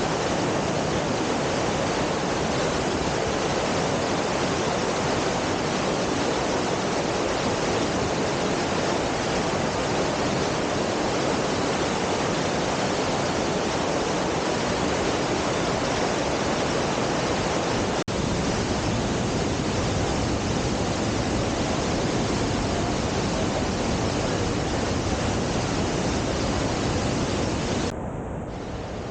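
Krka waterfalls in high flow after heavy rain: a steady, even rushing roar of falling water, a little quieter for the last second or so.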